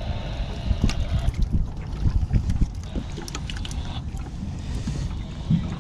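Wind buffeting the microphone aboard a drifting boat, an uneven low rumble, with a few sharp knocks.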